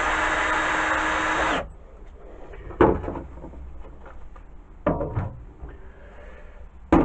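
Power drill motor running steadily while driving a screw, then stopping suddenly about a second and a half in. A few wooden knocks follow as tools and wood are handled.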